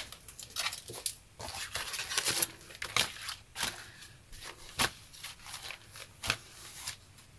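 Crumpled faux-leather paper crackling and rustling as it is smoothed flat by hand and handled, in an irregular string of short crackles and scrapes.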